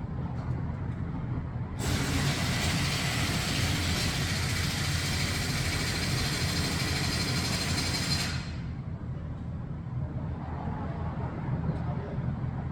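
A loud, steady hiss of pressurized gas starts abruptly about two seconds in, lasts roughly six seconds, and then dies away. A steady low rumble runs underneath it.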